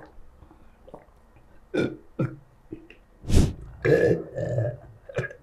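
A man belching repeatedly: a few short burps, then longer, louder ones from about three seconds in. In ruqyah practice this belching is taken as the stomach expelling what was 'planted' there.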